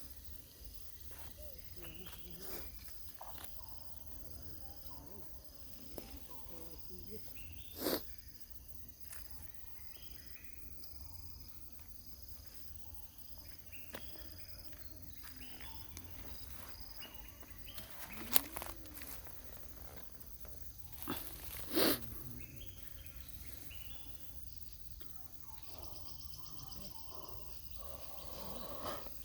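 Outdoor ambience with insects chirping in a steady pulsing rhythm, and a few brief sharp sounds, one at about eight seconds and two more around eighteen to twenty-two seconds in.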